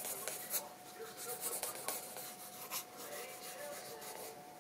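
Pen scratching across sketchbook paper in a run of short, irregular hatching strokes as an ink drawing is worked up.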